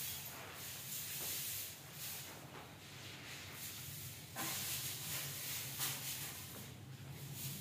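Short hand-held grass broom (jharu) sweeping a stone floor: a run of brushing swishes at an uneven pace.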